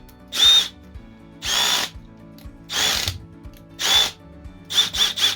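Milwaukee M18 cordless power tool running unloaded in short trigger pulses. Its motor whine rises and falls in each of four bursts of about half a second, then comes three times in quick succession near the end.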